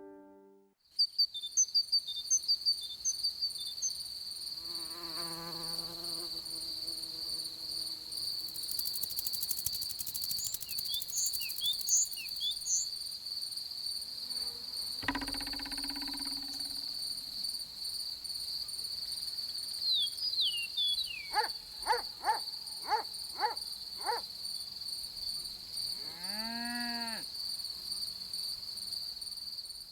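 Steady high-pitched cricket trill. Over it come short chirps, a single knock about halfway through, a quick run of falling squeaks, and one brief call that rises and falls in pitch near the end.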